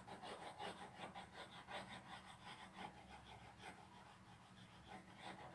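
Faint pencil hatching on drawing paper: quick scratchy strokes, about five or six a second, the pencil pressed down to lay dark graphite shading. The strokes thin out near the end.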